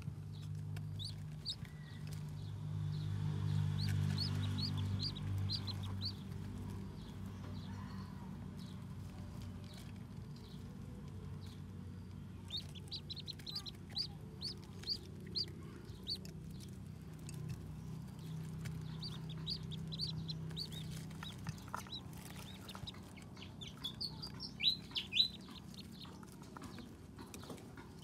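Domestic ducklings peeping: short high peeps in quick runs of several a second, coming in spells a few seconds apart, with the loudest near the end. A steady low hum runs underneath.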